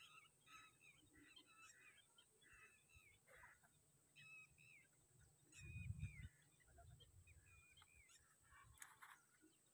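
Faint birds calling, with many short chirps in quick succession, and one brief low thump about six seconds in.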